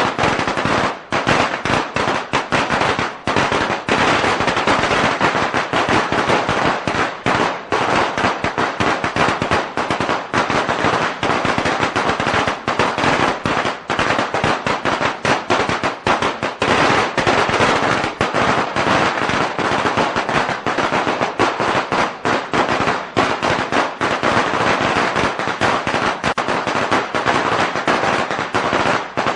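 A string of firecrackers going off in a rapid, unbroken crackle of bangs.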